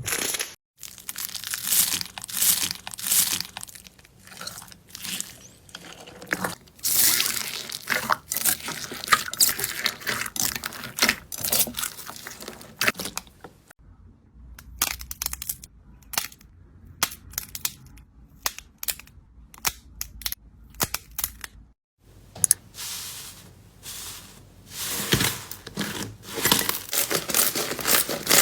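Slime being squeezed, poked and stretched by hand, giving dense crackling and crunchy popping. The sound breaks off and starts afresh twice, about a second in and again near 22 seconds.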